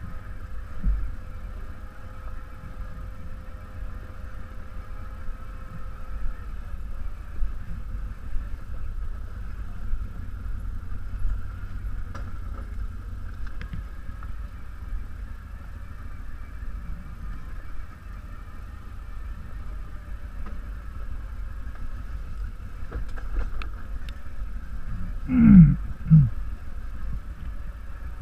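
ATV engine running steadily at low speed as the machine crawls over a rocky trail. Near the end come two short, loud sounds that fall in pitch.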